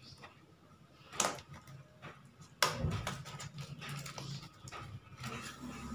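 Packing tape being peeled and torn off the end cap of a cardboard fishing-rod tube, with paper and plastic rustling. There is a short rip about a second in, then a louder, longer stretch of peeling and crackling from a little before three seconds.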